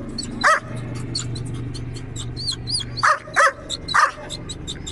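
Kohati Gultair dog barking: one bark about half a second in, then three quick barks close together near the end.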